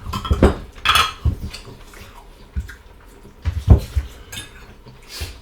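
Cutlery clinking and scraping against plates and bowls during a meal: a scatter of short knocks, the loudest a little before the four-second mark.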